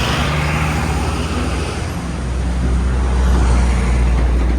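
Tour bus engine running close by, a low steady drone that swells louder about three seconds in.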